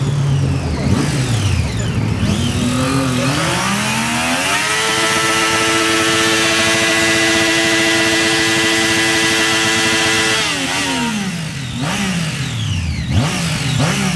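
A Triumph Daytona 675's inline-three engine is held at high revs for a burnout, the rear tyre spinning on the asphalt. The revs climb over about two seconds, hold steady for about six seconds, then drop. A few short throttle blips follow near the end.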